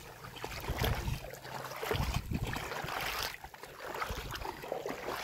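Wind buffeting the phone's microphone in uneven gusts, over the splashing of feet wading through shallow seawater.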